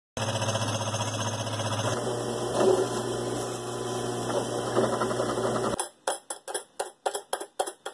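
Bench drill press motor running and drilling a small hole, a steady mechanical hum and whir. Near the end it stops suddenly and gives way to a quick run of sharp clicks and clinks, about three or four a second.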